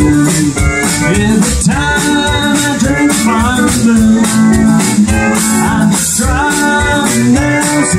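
Live honky-tonk country band playing an instrumental break: electric and acoustic guitars, pedal steel guitar, electric bass and drums, with a lead line of bent, sliding notes over a steady beat.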